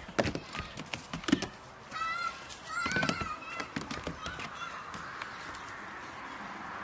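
Goat kids' hooves knocking on a wooden playhouse roof and its plank, several sharp knocks in the first second and a half. Two short, wavering animal calls follow a couple of seconds in.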